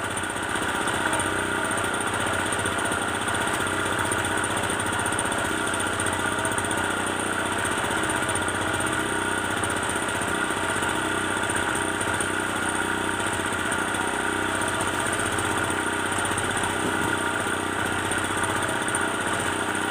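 A small engine on the fishing boat running steadily at an even speed, without change.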